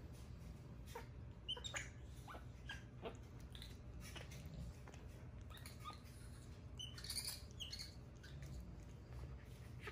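Capuchin monkeys squeaking: scattered short, high chirps, some falling in pitch, with a denser cluster about seven seconds in.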